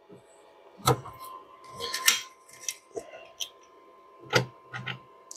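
Light clicks and clinks of small hardware as the 10 mm nuts and bolts of an engine cover are fitted by hand, about six sharp ticks scattered through a few seconds.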